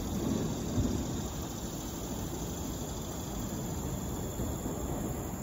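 Steady outdoor background noise, strongest low down, with one soft knock about a second in.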